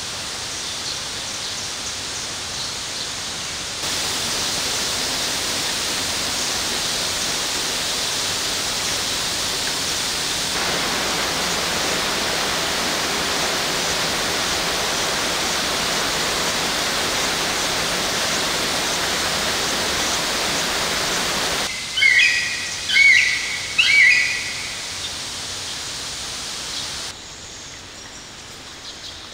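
Artificial rain from a glasshouse rain system falling steadily on dense tropical foliage, an even hiss. About two-thirds through it gives way to a quieter background in which a bird gives three loud chirping calls.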